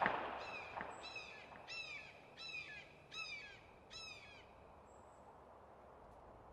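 A crow cawing six times in an even series, about one call every 0.7 seconds, each caw falling in pitch, then stopping about four seconds in. At the very start the tail of a louder sound is fading out.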